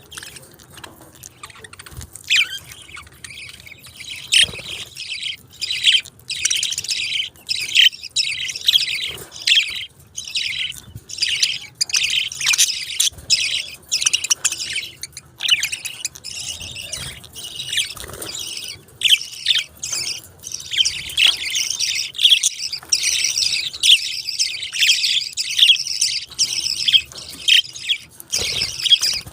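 Budgerigars chirping and chattering in a fast, continuous stream of short high notes, building up about two seconds in.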